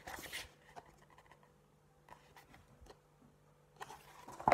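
Paper pages of a book rustling as it is handled, with a short rustle at the start and a louder one near the end, and faint scattered clicks between.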